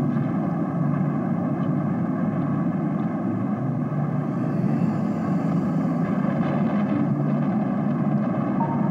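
A steady, loud low rumble with faint sustained tones above it.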